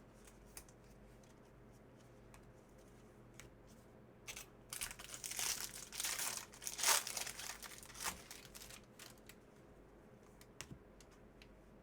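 A foil trading-card pack wrapper being torn open and crinkled, in a burst of about four seconds near the middle, with a few light clicks of card handling before and after.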